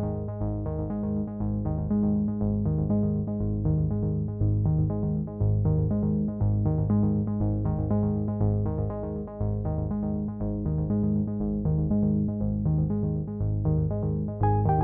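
Instrumental background music with a steady, repeating pattern of notes.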